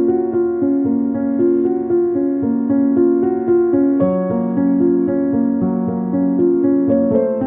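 Background music on a piano-like keyboard: a flowing run of notes with no break.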